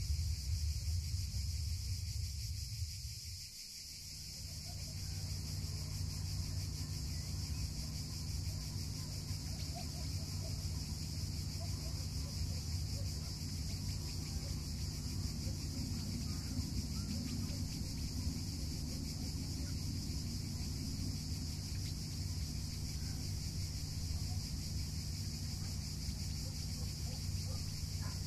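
Outdoor dusk ambience: a steady high chirring of insects over a constant low rumble. The rumble drops away briefly a few seconds in, then returns.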